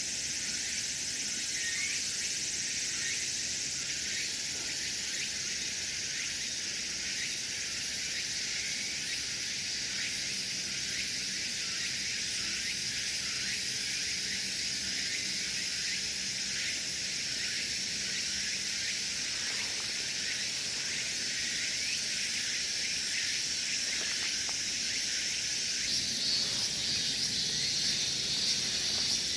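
A steady, high-pitched chorus of insects, dense and shrill, growing a little louder near the end.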